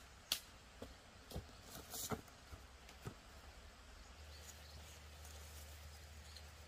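A few light crackles and snaps of dry leaves, twigs and bamboo disturbed in forest undergrowth, the loudest about a third of a second in. From about four seconds in only a faint low rumble remains.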